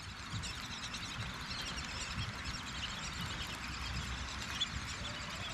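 Small birds chirping faintly and often, over a low, steady rumble of outdoor background.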